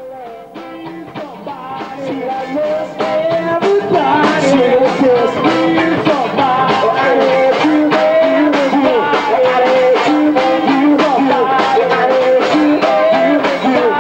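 Live rock band with a singer and a steady drum beat, fading in over the first few seconds and then playing on loudly.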